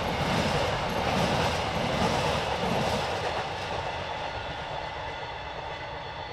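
Container flat wagons at the tail of a freight train running over the track, loud for the first three seconds as the last wagons pass, then fading steadily as the train moves away.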